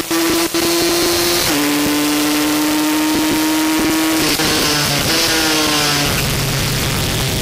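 Aprilia 125 race motorcycle's engine held high in the revs at racing speed, with wind rush over it. It cuts out briefly twice near the start, and its pitch steps down about a second and a half in and again near the end.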